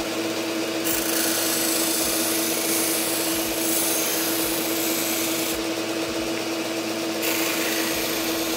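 GIB BDS-610 belt-and-disc sander running with a steady motor hum while a wooden block is ground against its sanding disc to round the corners. The rasp of wood on abrasive grows and eases a few times as the block is pressed and moved across the disc.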